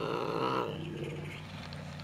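Domestic cat growling with a mouse held in its mouth: a long, low growl, loudest in its first half-second, then settling lower for about two seconds. It is the possessive growl of a cat guarding its prey.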